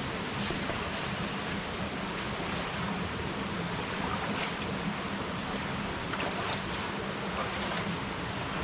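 Steady rush of a stream flowing through a rocky gully, with a few faint ticks over it.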